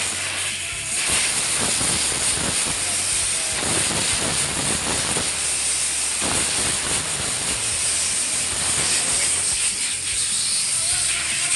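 Compressed air hissing from an air blow gun as it is blown through a forklift's cylindrical mesh air filter element to clean the dust out of it. The hiss is loud and steady, with a brief dip about a second in.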